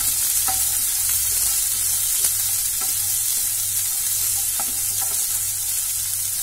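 Chopped shallots and chillies sizzling steadily in hot oil in a nonstick frying pan, sautéing toward golden brown, while a wooden spatula stirs them, with a few soft scrapes and knocks against the pan.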